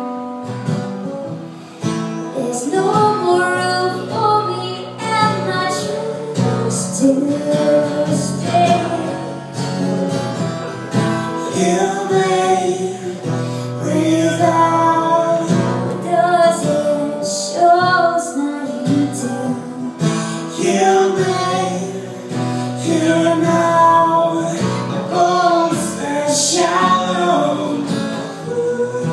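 A woman singing a song live, accompanied by a strummed guitar.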